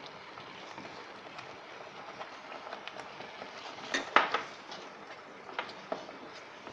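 Wooden spatula stirring corn kernels into thick gravy in a pan, with scattered light clicks and a couple of sharper knocks about four seconds in.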